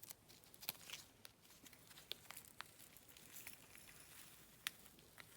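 Faint, scattered small clicks and light taps from handling small pots and tools at a work table, the sharpest tick about four and a half seconds in.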